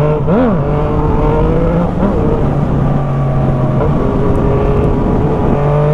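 Yamaha MT motorcycle with an aftermarket Jeskap GP2 exhaust, riding along. The engine note holds fairly steady, with a brief pitch blip about half a second in and a slight rise near the end.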